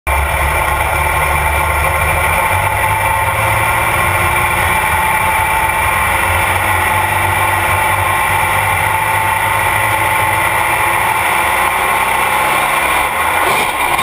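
Engine of a light modified pulling tractor idling steadily and loudly, heard close up from on board the machine, just before a pull.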